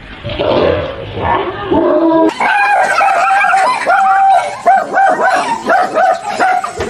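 Dog yipping and whimpering, with a fast run of short, high yips from about two seconds in.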